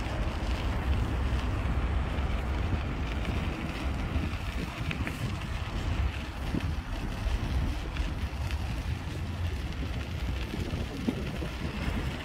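Wind buffeting a camera microphone: a steady, unsettled low rumble with a fainter hiss above it.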